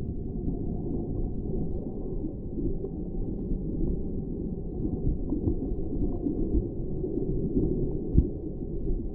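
Underwater sound of shallow sea water moving, heard through an action camera's waterproof housing: a low, muffled, uneven wash with a few faint ticks, and a single sharp knock about eight seconds in.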